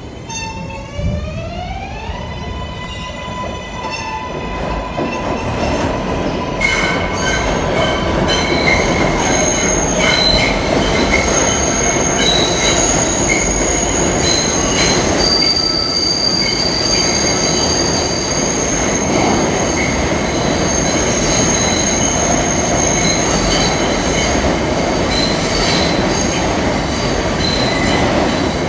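An R142A subway train on the 6 line running past on curved track, its wheels squealing in several high, steady tones over the rumble of the cars. Near the start a whine rises in pitch and then holds steady for several seconds.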